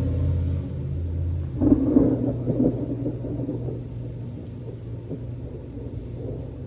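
Thunder rumbling: a crackling peal breaks about one and a half seconds in and fades over the next few seconds, over a steady low hum.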